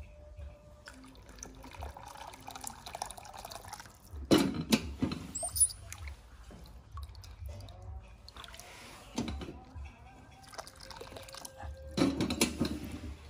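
Water dripping and splashing as a tiny baby monkey is bathed by hand over a small basin. There is louder splashing twice, about four seconds in and again near the end.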